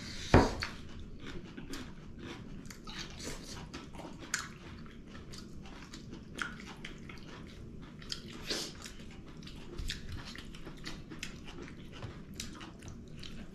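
People chewing food close to the microphone, with small wet mouth clicks scattered throughout and a sharper click just after the start.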